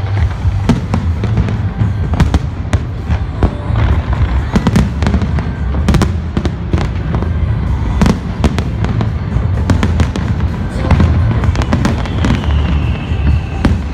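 Fireworks display: dense, irregular bangs and crackles of bursting shells, over music with a heavy bass.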